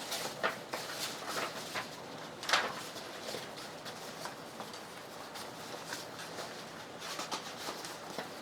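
Paper and small craft supplies being handled on a work table: light rustling with scattered small taps and clicks, one louder tap about two and a half seconds in and a quick run of ticks near the end.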